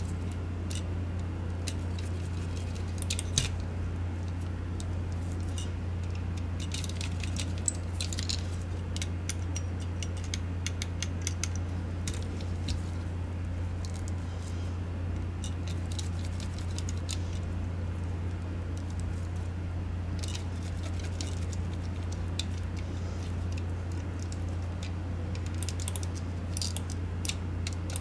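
Light clicks and taps of small plastic mouse-shell parts and tiny screws being handled and fitted, coming in scattered clusters over a steady low hum.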